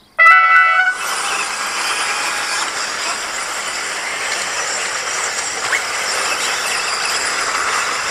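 A loud electronic start tone of about a second from the race timing system. Straight after it, a pack of 2WD radio-controlled buggies sets off together, making a steady high-pitched drone of motors and tyres.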